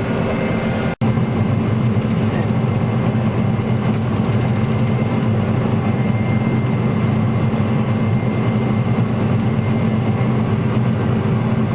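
Combine harvester running while cutting wheat, heard from inside its cab as a steady low drone, with one brief break about a second in.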